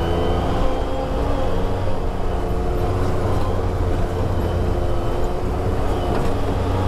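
Side-by-side UTV engine running steadily, heard from on board while it drives a rough dirt trail. The engine's pitch shifts a little as it goes.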